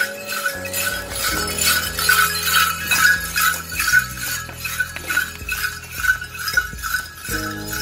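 Metal jingles or bells worn by an Apache crown dance clown, shaking in a steady beat about three times a second as he moves, with a low steady hum underneath.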